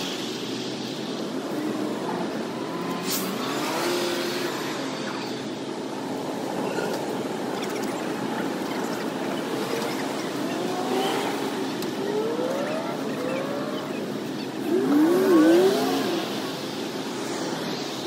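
Engines running steadily, with the engine pitch rising and falling several times and a louder, wavering rise and fall about fifteen seconds in.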